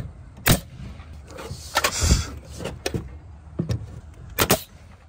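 Pneumatic coil nailer firing nails overhead through fiber-cement soffit panel, several sharp shots spread a second or more apart, one followed by a short hiss of air.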